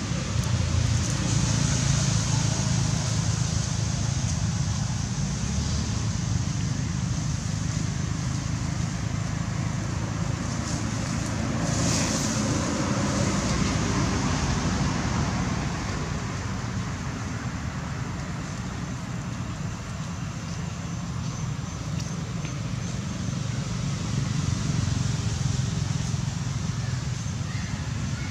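Steady outdoor background noise: a low rumble with a hiss above it, with a brief higher rustle about halfway through.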